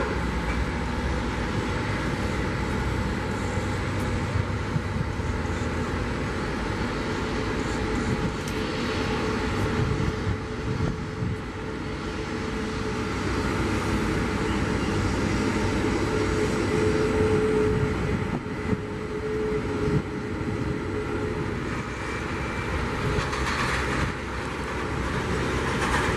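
Jet engines of a taxiing Boeing 737 MAX 8 (CFM LEAP-1B turbofans) running at idle thrust: a steady rumble and hiss, with a faint steady tone rising out of it in the middle.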